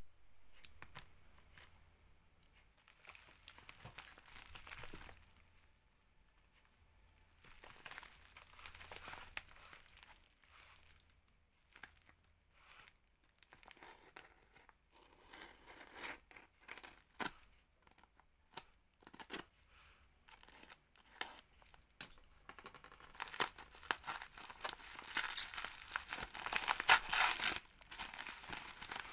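Packaging being unwrapped by hand: irregular crinkling, rustling and tearing of wrapping, in short bouts that grow loudest and busiest near the end.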